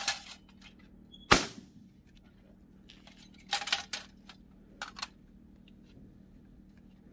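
A single shotgun shot about a second in, sharp and loud with a brief tail, followed a couple of seconds later by a few softer clicks and knocks.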